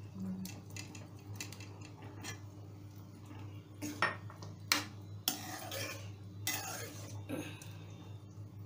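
A spatula stirring paneer cubes into curry gravy in a metal kadhai: a few light clicks, then sharp knocks against the pan about four seconds in, followed by several scraping strokes along the pan. A steady low hum runs underneath.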